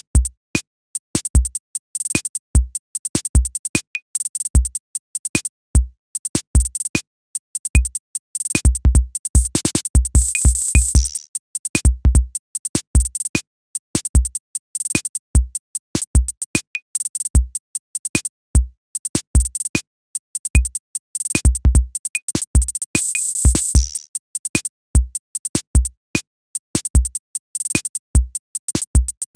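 Electronic background music with a steady drum-machine beat: short deep kick thumps and crisp high clicks, with occasional noisy swells, one about ten seconds in and one about twenty-two seconds in.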